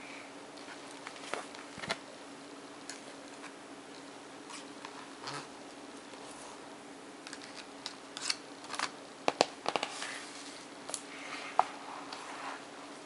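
Long fingernails tapping and brushing over the stiff card pages and pop-up pieces of a pop-up book: scattered light clicks and rustles, thickest about eight to ten seconds in, over a steady low hum.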